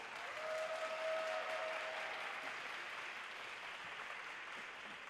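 Spectators in an ice rink applauding and cheering as a skating pair is introduced. One long held cheer stands out in the first couple of seconds, and the clapping slowly dies away.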